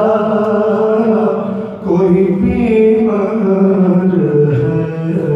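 A solo man's voice chanting Urdu elegiac verse in a slow, melodic line of long held, gliding notes, without instruments.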